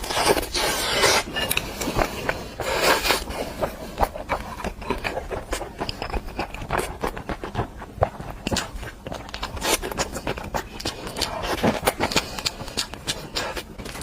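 A person chewing and biting food close to the microphone: many sharp wet clicks and smacks, with a few short crunchy bursts.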